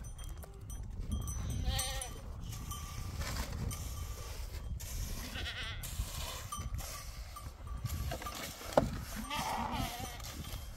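Sheep and goats bleating now and then over a steady low rumble, with one sharp knock near the end.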